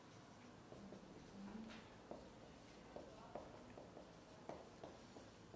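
Near silence broken by faint, short scratches and taps of writing, spaced irregularly.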